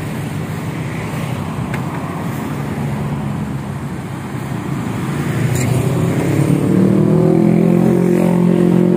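Street traffic noise, then a passing motorcycle's engine growing louder from about six seconds in, its pitch rising slightly as it comes close.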